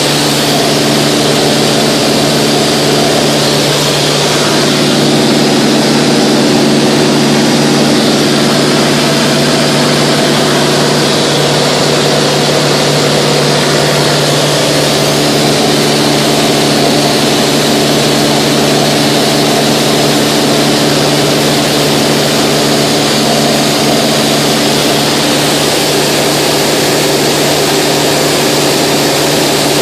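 Mooney 201's four-cylinder Lycoming engine and propeller running steadily at cruise power of about 55%, heard from inside the cabin as a loud, even drone over a steady hiss.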